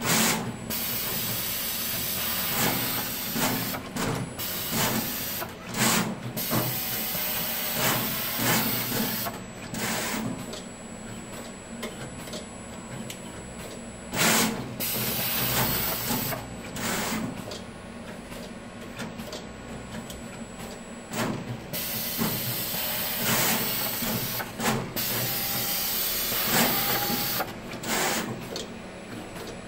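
SMT pick-and-place machine running through a placement cycle: a steady motor hum and faint high whine under frequent short hisses and clicks as the head moves and picks and places parts. The hisses come irregularly, every second or two.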